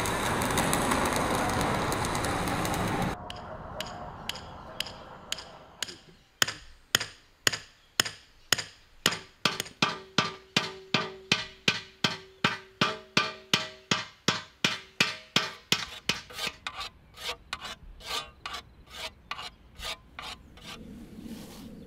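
A hand hammer peening a scythe blade on a small anvil: sharp, evenly spaced metallic strikes at about two a second, each with a brief ringing tone, growing fainter near the end. A loud, steady rushing noise from metalworking comes before it and cuts off suddenly about three seconds in.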